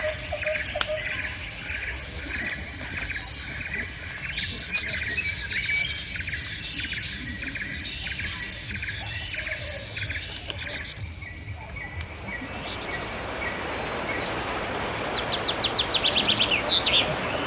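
Forest ambience: birds calling with repeated short chirps over a steady high insect drone. About two-thirds of the way through a steady hiss comes in, and near the end a bird gives quick high trills.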